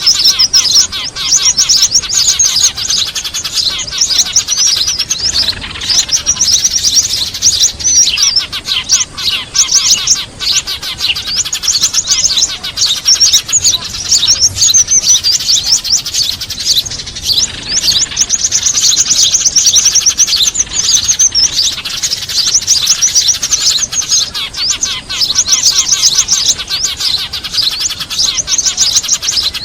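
Dense, noisy chattering of many small birds, Eurasian tree sparrows among them: fast high chirps and trills overlapping with barely a pause. It is a bird-lure call used to draw small birds to a trap.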